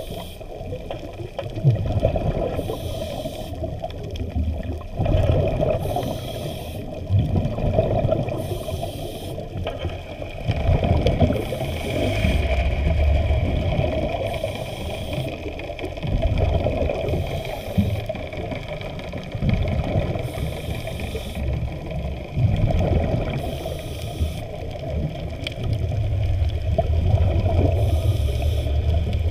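Muffled underwater sloshing and rushing of water heard through an underwater camera's housing, with low surges that swell and fade every few seconds.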